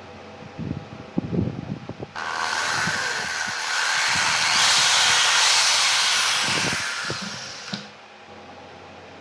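A few handling knocks, then a loud, steady hiss starts about two seconds in, swells in the middle and fades out after about five and a half seconds, ending with a knock, over a steady background hum.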